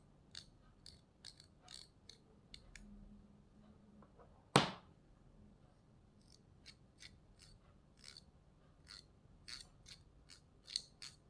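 Scattered light clicks and taps from handling small tools and parts on a workbench while flux is worked onto a module's pins, with one sharp knock about four and a half seconds in.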